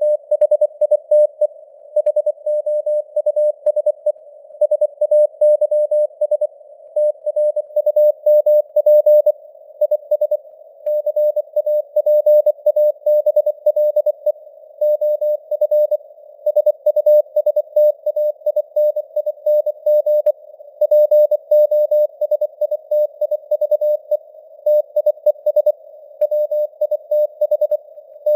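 Morse code (CW) at 24 words per minute: a single steady-pitched beeping tone keyed on and off in rapid dots and dashes, inside a narrow band of simulated radio hiss. The signal strength rises and falls from word to word, imitating fading (QSB).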